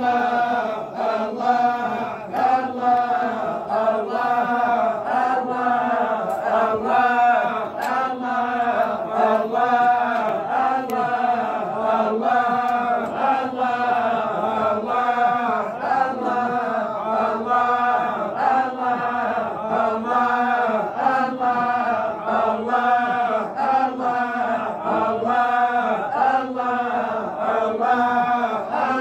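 A group of men chanting dhikr in unison in a Sufi 'imara (hadra) circle, repeating a short phrase over and over in a steady rhythmic pulse.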